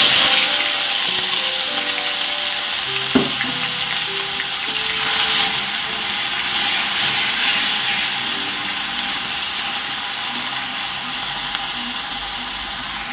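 Grated onion, ginger and garlic paste frying in hot oil in a kadai. The sizzle starts suddenly as the paste goes in and slowly eases while it is stirred with a spatula, with one sharp tap of the spatula about three seconds in. Faint background music plays underneath.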